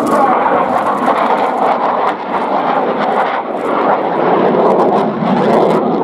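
Loud, steady jet noise from an F-4EJ Kai Phantom II's two J79 turbojet engines as the fighter flies its display overhead.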